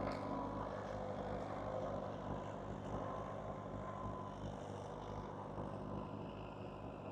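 Doe Triple D tandem tractor's diesel engines running steadily while ploughing, slowly growing quieter.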